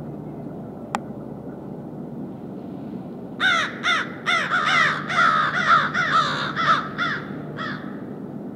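A bird giving a quick run of about ten loud, harsh calls, each dropping in pitch, over a low steady background hum. A single sharp click comes about a second in.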